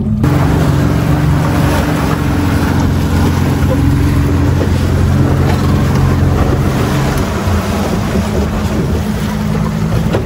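Boat motor running at a steady speed while under way, with wind noise on the microphone and the rush of water.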